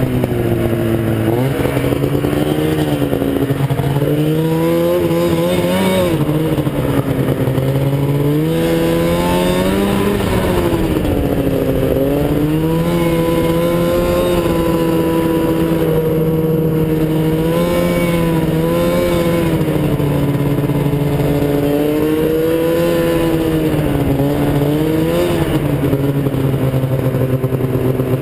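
Arctic Cat F7 snowmobile's two-stroke twin engine running under way, its pitch rising and falling again and again as the throttle is opened and eased off.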